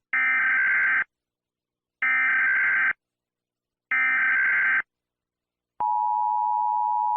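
Emergency Alert System SAME header: three bursts of warbling digital data tones, each about a second long and about two seconds apart. Near the end, the steady two-tone EAS attention signal begins.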